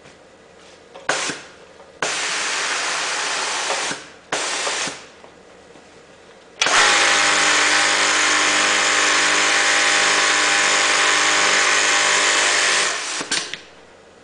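HAMS MHA-SSM100-J industrial automatic side-seam sewing unit at work. It makes a few short hissing bursts. Then the sewing head runs at a steady speed for about six seconds as it feeds and stitches the fabric, and winds down near the end.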